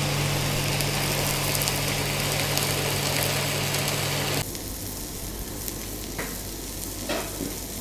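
Water sizzling and steaming on a hot flat-top griddle around a banana-leaf-wrapped parcel, over a steady low hum. About four and a half seconds in it drops to a quieter sizzle of chopped onions on the griddle, with two brief sharper sounds near the end.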